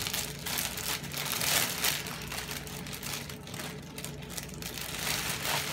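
Clear plastic wrapping on a toy kitchen trolley crinkling in short, irregular rustles as a child's hands pull and handle it.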